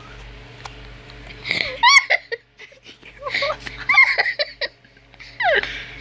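A person giggling and laughing in high-pitched, squealing bursts, over a faint steady hiss in the first second or so and a low hum.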